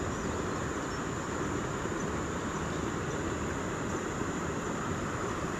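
Steady rushing outdoor background noise, with a thin, steady, high-pitched insect drone above it.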